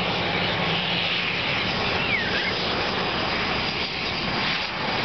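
Berjaya Air turboprop airliner's engines running, a steady loud drone of engine noise.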